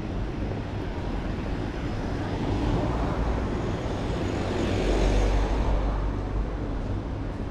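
A van driving past on the street: its engine and tyre noise swells to a peak about five seconds in, then fades, over a steady low background rumble.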